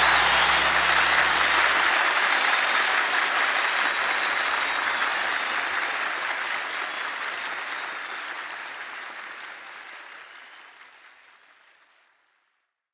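Audience applause at the end of a live song, with the band's last held organ chord stopping about two seconds in. The applause then fades out steadily and is gone shortly before the end.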